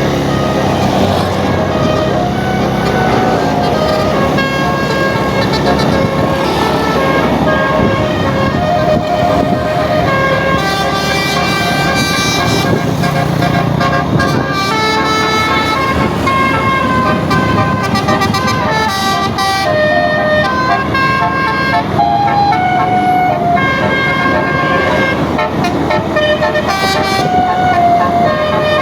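Multi-tone "telolet basuri" bus horn playing a melody, its notes stepping up and down in pitch without a break.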